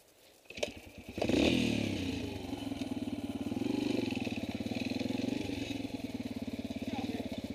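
A small off-road vehicle engine starts about a second in, then runs at a steady idle with rapid, even firing pulses.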